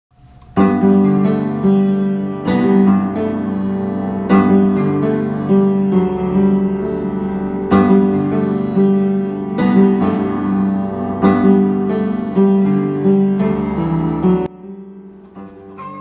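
Piano music, a run of held chords with notes struck every half second or so. It starts about half a second in and breaks off sharply near the end, leaving a faint tail.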